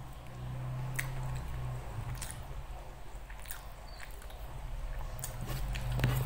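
Close-miked chewing and wet mouth sounds of someone eating rice and rendang, with short smacks and clicks here and there, over a steady low hum.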